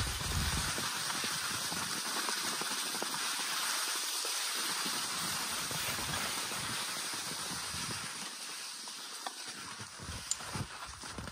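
Skis sliding and scraping over snow with a steady hiss, easing off near the end as the skier comes to a stop.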